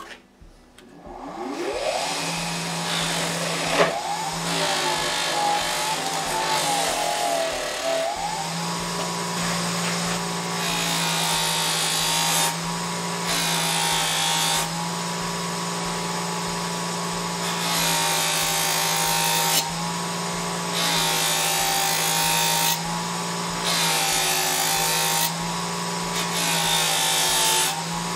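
Bench buffer's electric motor switched on, spinning up about a second in and then running steadily with a hum. From about ten seconds in, repeated bursts of hiss come as work is pressed against the spinning cloth buffing wheel, which is charged with red jeweler's rouge.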